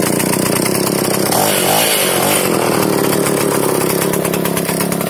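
Single-cylinder two-stroke engine of a Druzhba chainsaw, powering a homemade mini snowmobile, running at a steady low speed with a brief dip and rise in revs about a second and a half in.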